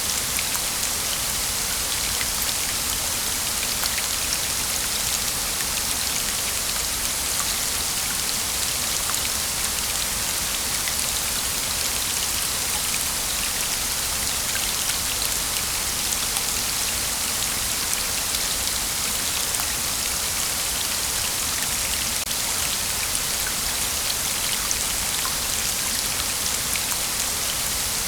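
Waterfall: a steady rush of falling water, with a fine spatter of splashing droplets over it.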